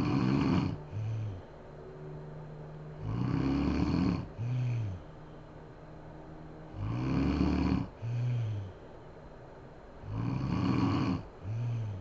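A sleeping woman snoring loudly and rhythmically: four snores about three and a half seconds apart, each a rough snore of about a second followed by a brief second one.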